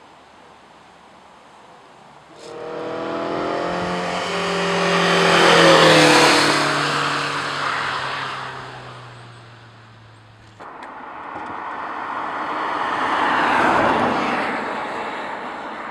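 Two low-carbon test cars passing at speed, one after the other. The first comes in suddenly about two and a half seconds in, its motor tone falling in pitch as it goes by; after an abrupt cut, an Electric Morgan passes close with mostly tyre and wind noise.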